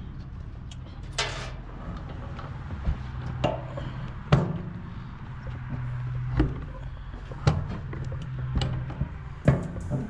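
Sharp knocks and thunks, about seven of them spread out, the loudest about four seconds in, as a new toolbox is handled. A steady low hum runs underneath.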